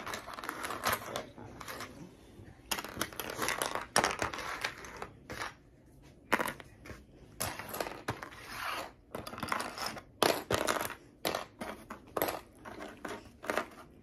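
Small plastic Lego bricks clicking and clattering onto a tabletop as loose pieces are picked through and sorted by colour by hand, with some rustling of plastic bags.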